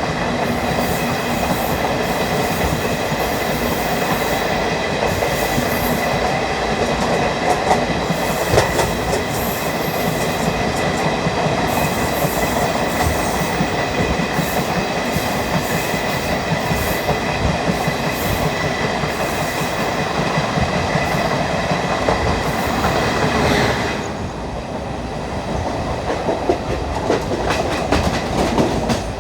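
ICF passenger coach running along the track, a steady rumble and rattle with the clickety-clack of the wheels and a faint steady high whine over it. About 24 seconds in the sound drops and thins, then a run of sharp clicks comes near the end.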